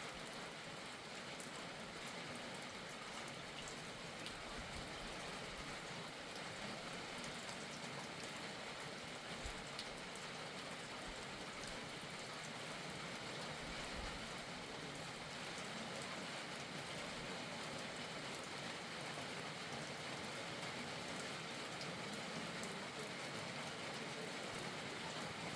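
Steady rain falling, an even hiss with scattered drops ticking on surfaces, growing slightly louder toward the end.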